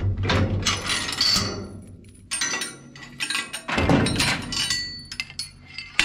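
Galvanised steel hurdle gate being shut and its chain latch fastened: several spells of metal clanking and chain clinking, with a sharp click near the end.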